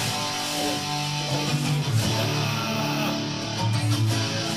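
Background music led by strummed guitars.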